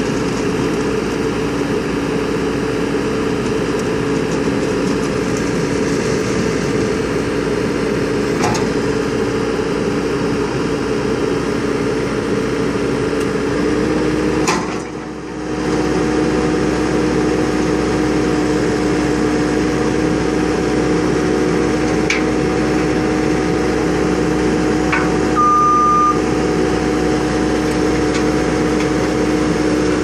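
New Holland skid steer's diesel engine running steadily under load while its hydraulic 3-foot auger drills into gravelly soil. The level dips briefly about halfway through, and a short high-pitched tone sounds near the end.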